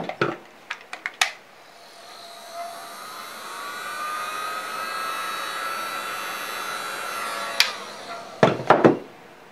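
Heat gun running, its fan rising in pitch as it spins up and then blowing steadily to fuse the freshly brushed layer of encaustic wax. It cuts off with a click about eight seconds in. There are a few clicks before it starts and knocks near the end.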